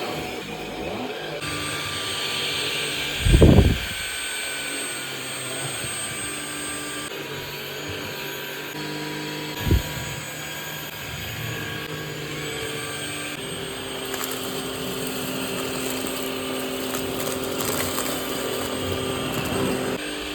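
MBYULO cordless stick vacuum running, a steady motor whine whose tone shifts a few times. Two loud dull thumps cut in, about three seconds in and again near ten seconds.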